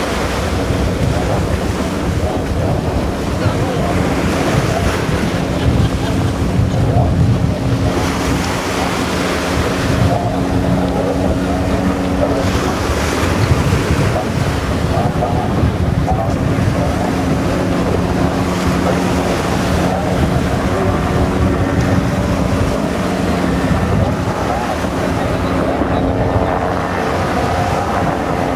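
Racing powerboat engines and a low-flying helicopter tracking them, heard as a steady drone with several held tones, under heavy wind noise on the microphone and the wash of the sea.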